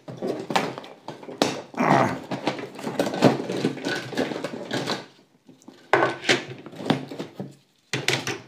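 Loose plastic Hot Wheels track pieces clattering and knocking against each other and the cardboard box as hands rummage through them, with a short lull just past halfway.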